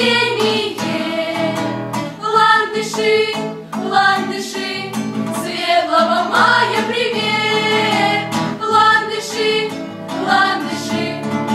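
A group of young women singing together, accompanied by a strummed acoustic guitar.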